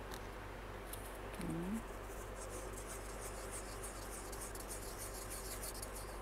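A stir stick scraping quickly against the inside of a cup as pigment is mixed into resin: a fast run of high, scratchy ticks starting about two seconds in. A brief low wavering tone sounds about a second and a half in, over a steady low hum.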